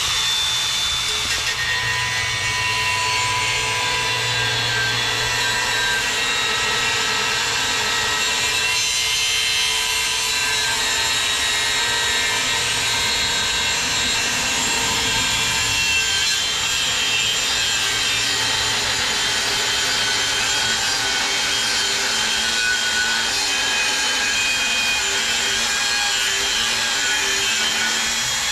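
Power tool, most likely an angle grinder's cut-off wheel, cutting steadily through the steel shell of a small hermetic refrigeration compressor, with a continuous grinding screech whose pitch wanders slightly as the wheel bites.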